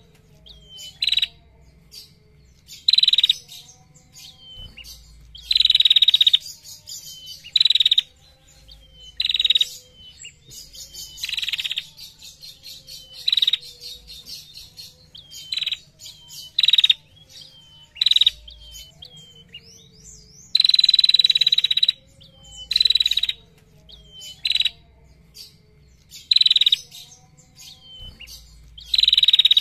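Female prenjak, a small warbler, calling in repeated harsh, buzzy trilling bursts every second or two, a few of them held for about a second, with short high down-slurred notes between some bursts.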